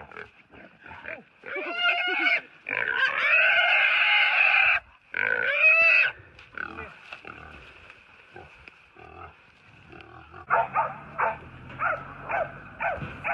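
Wild pig squealing while pig-hunting dogs hold it: three long, loud squeals in the first six seconds, followed near the end by a run of shorter, quieter cries.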